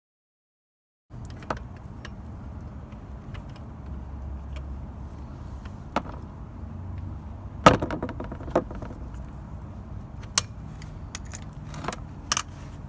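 Scattered metallic clinks and knocks of a 19 mm socket wrench working the engine oil drain bolt of a Yamaha Tricity scooter, over a low steady hum. The loudest knock comes about two-thirds of the way through, and two more come near the end.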